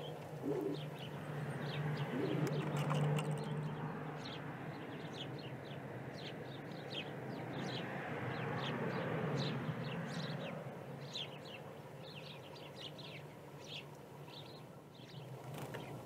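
Eurasian red squirrels squeaking, a rapid scatter of short, high-pitched squeaks over a steady low hum.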